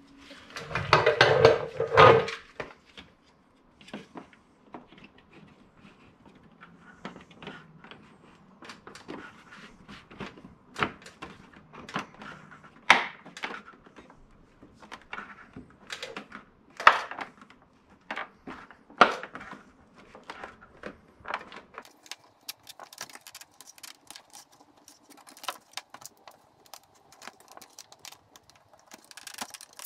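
Hard plastic kidney grille being handled and pressed into a car's front bumper: a loud bout of rattling and rubbing at the start, then scattered sharp clicks and knocks as the grille's clips are pushed into place.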